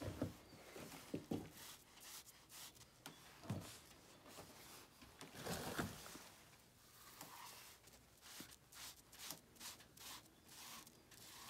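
Faint, scratchy rubbing of a paint marker's tip dragged across a rough wall in many short strokes, with a few dull bumps near the start and about halfway through.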